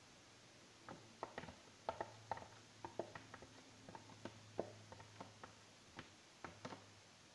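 Light, irregular clicks and taps of a plastic container being handled and tipped over a frying pan as pancake batter is emptied from it, about twenty in a few seconds.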